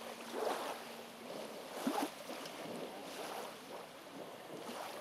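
Small waves washing onto a gravel lakeshore, swelling about four times, a second and a half or so apart.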